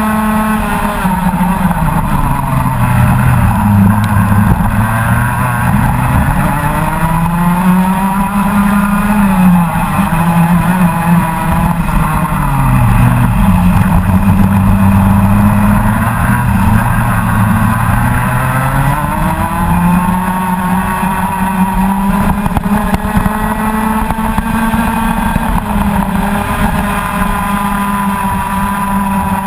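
Rotax Max Senior 125 cc single-cylinder two-stroke kart engine heard close up at racing speed. Its pitch drops as the driver lifts into corners and climbs again on the exits, several times over, then holds high and steady through the last third.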